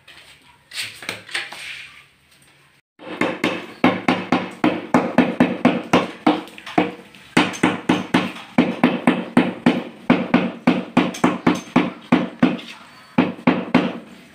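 Rubber mallet tapping a large polished tile down into a wet mortar bed, a quick, steady run of dull knocks, several a second, to bed and level the tile. A brief rough noise comes first, then the tapping starts about three seconds in.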